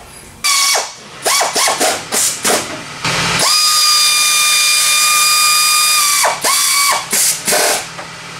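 Handheld cordless power driver spinning a fastener at the engine's alternator: a string of short trigger pulls, each whining up in pitch, then one steady run of about three seconds, then a few more short pulses.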